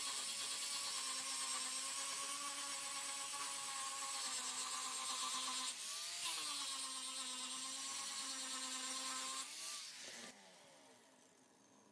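Angle grinder with an abrasive disc sanding rust off the steel blade of a butcher's cleaver: a steady motor whine with a gritty hiss. It eases off briefly about six seconds in, then near the end the grinder is switched off and spins down, its pitch falling as it fades.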